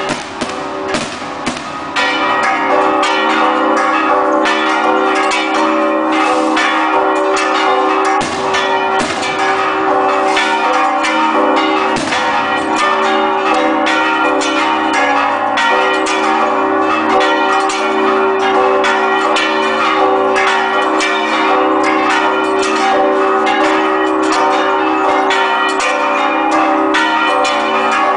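Church tower bells ringing a rapid repique, the Mexican festive peal calling the faithful to Mass: many overlapping strikes over sustained ringing tones, growing louder about two seconds in.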